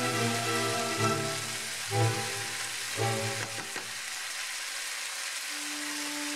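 Chicken and zucchini sizzling in a hot frying pan while a wooden spatula stirs them, with a few light scrapes about halfway through. Background music plays throughout.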